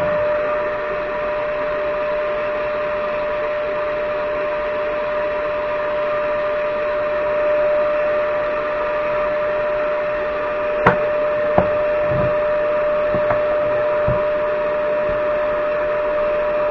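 Shop vacuum running steadily with a constant hum and hiss. A few light knocks of wood being handled come about two-thirds of the way in.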